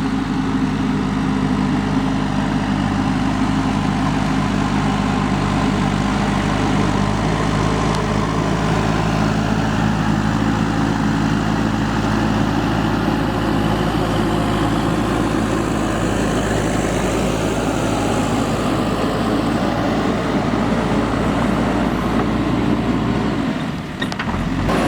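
JCB 3DX backhoe loader's diesel engine running steadily while the machine works. Its even engine note turns rougher about ten seconds in. The level dips briefly near the end.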